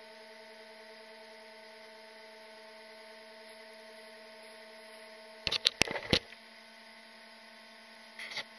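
Faint steady electronic hum with a few fixed tones. About five and a half seconds in, a quick cluster of sharp thumps and scuffs from footsteps in the sand right beside the stopped RC truck, and a shorter scuff near the end.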